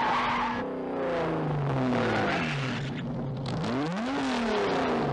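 Old ambulance engines revving, their pitch falling and climbing several times as the vehicles speed and swerve about.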